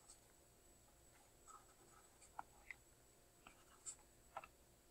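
Black dry-erase marker writing on a whiteboard: a scattering of faint, short squeaks and scratches as the tip strokes out letters.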